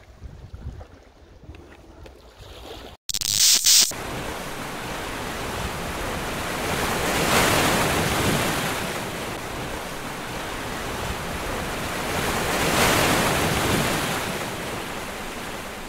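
Ocean surf washing onto the shore, swelling louder twice as waves come in. It starts quietly, and about three seconds in a short, loud burst of noise cuts in before the surf.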